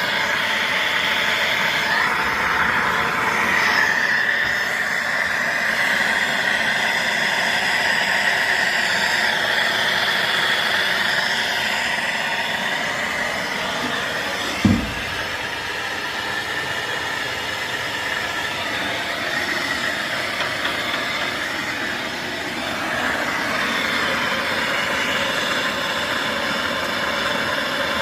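A plumber's soldering torch burning steadily with a continuous hissing rush and a faint whistling tone while heating copper pipe joints. One short, dull thump about halfway through.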